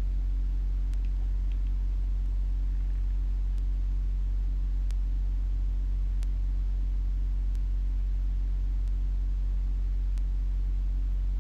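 A steady low hum, with a faint tick repeating about every second and a quarter.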